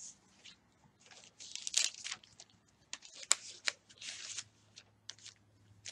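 Thin Bible pages being leafed through, a series of short paper rustles and flicks with one sharper flick about halfway.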